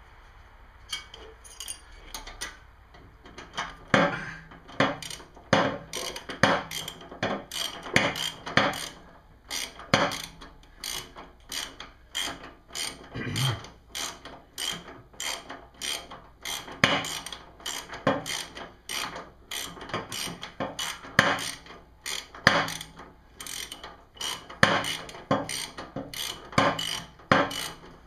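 A socket ratchet clicking in repeated strokes, roughly one to two a second, as a 7/16 nut is run down onto a new shear bolt on a snowblower auger.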